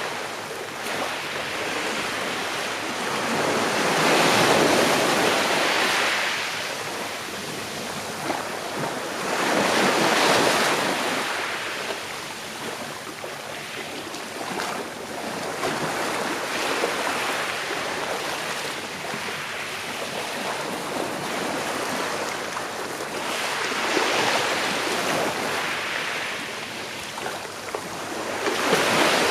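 Sea waves washing onto a shore in slow, rolling surges, each swelling and fading over a few seconds: four larger surges, about 4 s, 10 s and 24 s in and near the end, over a continuous wash.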